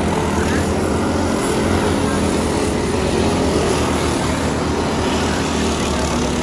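Several dirt-track racing kart engines running flat out together, a steady overlapping buzz from the karts lapping the oval.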